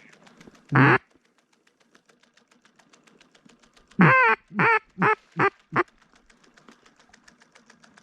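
Hen mallard quacking: a single quack about a second in, then a run of five quacks near the middle, each shorter and quieter than the last. Faint, even, rapid ticking runs underneath.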